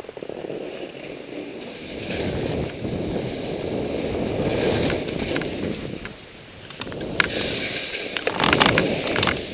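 Skis sliding and scraping over packed snow during a downhill run, with wind rushing over the microphone; it dips briefly, then grows louder with sharp crackling scrapes near the end.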